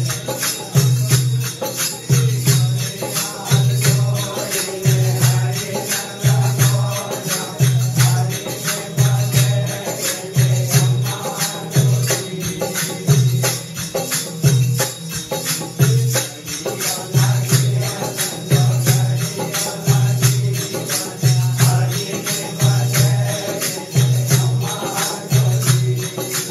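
A group of men singing a Vagdi devotional bhajan together, with small brass hand cymbals clashing rapidly and a steady low beat repeating a little faster than once a second.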